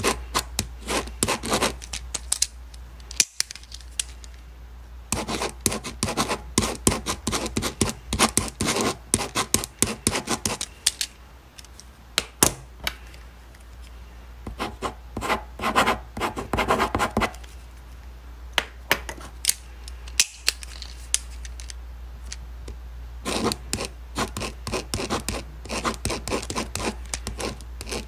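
Ballpoint pen writing on paper: runs of short scratching strokes and taps, in spells of a few seconds broken by brief pauses.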